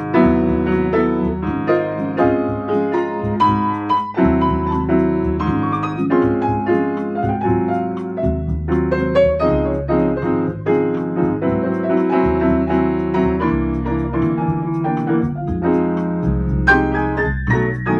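Grand piano being played: a continuous flow of struck notes and chords over held bass notes.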